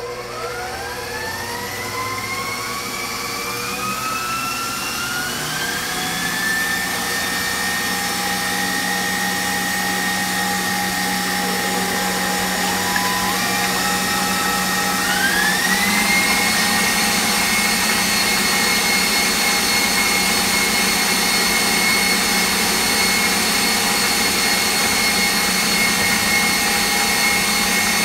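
KitchenAid Professional 600 stand mixer's wire whip beating eggs and sugar at high speed. The motor whine climbs in pitch as it spins up over the first several seconds, steps up again about halfway through as the speed is raised, then runs steady.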